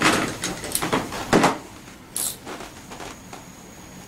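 Handling noise from fitting parts to a scooter's front end: a few knocks and bumps, the loudest about a second in, and a short high clink or rustle about two seconds in.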